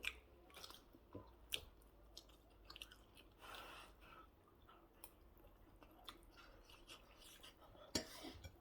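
Faint chewing of fried plantain and egg: soft, scattered mouth clicks and smacks at an uneven pace.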